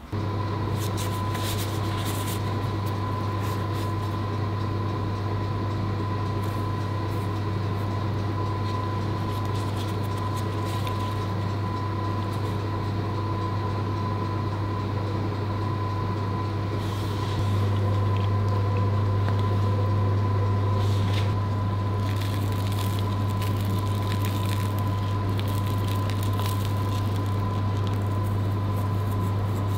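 A steady low machine-like hum with a thin high tone above it. It grows a little louder for a few seconds past the middle, with a few faint taps over it.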